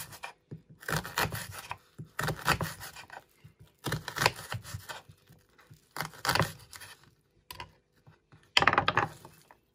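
Kitchen knife dicing a red onion on a wooden chopping board: about six short bursts of quick, crisp cutting strokes, each slicing through the onion layers and tapping the board, with brief pauses between.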